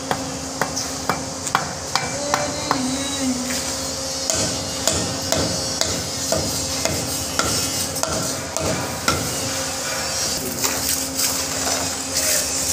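Hammer tapping masonry blocks to settle them into their mortar bed: many sharp, irregular knocks, with a steady hum underneath.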